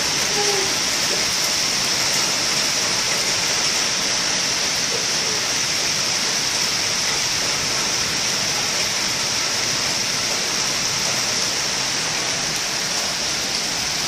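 Heavy thunderstorm rain pouring down steadily, a dense even hiss of drops on grass, paving and roofs.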